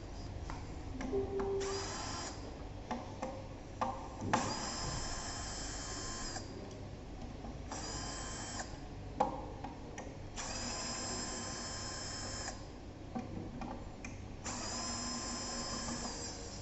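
A small handheld power tool's motor whirring in about five short runs of half a second to two seconds each, with small clicks and knocks between them.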